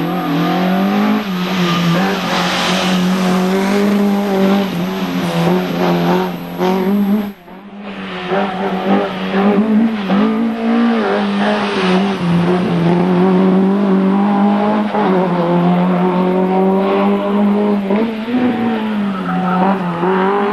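Race car engines revving hard, the pitch rising and falling over and over as the cars brake and accelerate through slalom cone chicanes, with tyre squeal. The sound drops out briefly about seven seconds in, then another car's engine takes over.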